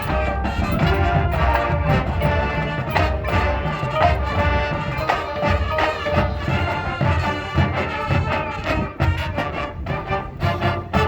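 High school marching band playing: horns hold stacked chords over a steady beat of drum hits, and the percussion grows busier and more broken up near the end.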